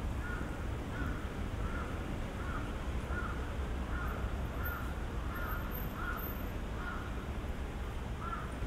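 A crow cawing over and over in an even series, about three caws every two seconds, over a steady low hum of street traffic.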